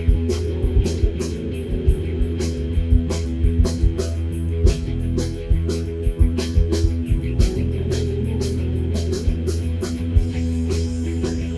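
Music with guitars over a steady beat of drum hits.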